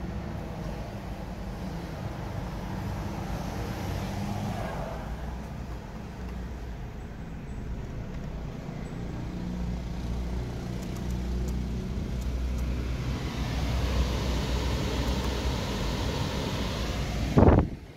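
Steady low hum of a Toyota Sienta running, heard inside its cabin. Over it the climate-control fan rushes, growing louder in the second half as the fan is turned up. A brief loud thump comes near the end.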